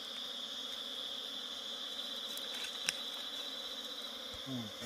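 Insect chorus shrilling steadily at one high pitch, with a single sharp click about three seconds in.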